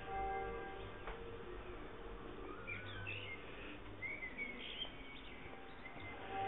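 Church bell strikes, one at the start and another near the end, each ringing on and slowly fading. Between them songbirds chirp in short, quick calls.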